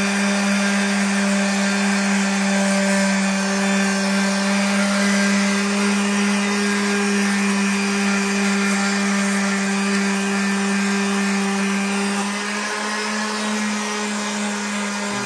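Electric sander with a 220-grit disc, already up to speed, running with a steady whine as it sands a scratched car wheel rim, smoothing out the lines left by the coarser 150 grit. Its sound drops slightly about twelve seconds in.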